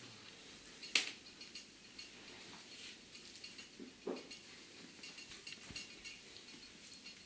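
A Papillon and a Shetland sheepdog scuffling on a bed: a run of light clicks and rustling of bedding, with one sharp knock about a second in and a duller thump about four seconds in.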